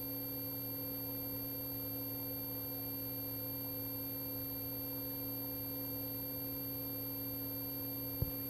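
Steady electronic hum made of several constant tones, unchanging, on a radio audio feed between transmissions, with a single short click near the end.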